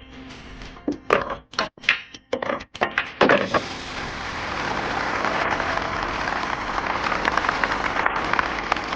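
A few sharp wooden clacks and knocks, then from about three seconds in a crowd applauding steadily.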